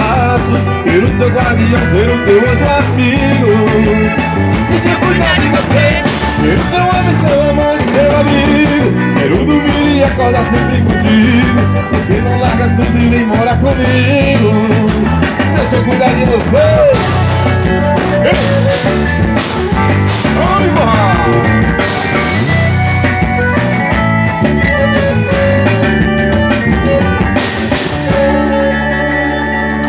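Live forró band playing through a PA: button accordion over electric guitar, bass and a drum beat. The playing thins out near the end to a held bass pattern.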